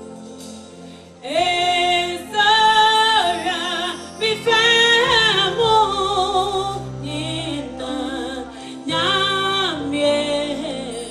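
Live gospel music: about a second in, a woman starts singing long held notes with vibrato over a band accompaniment.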